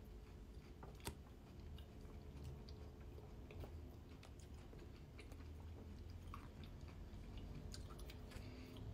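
Faint close-up chewing of a mouthful of Bircher muesli, soft oats with fruit and seeds, with scattered small clicks and one sharper click about a second in. A faint steady hum runs underneath.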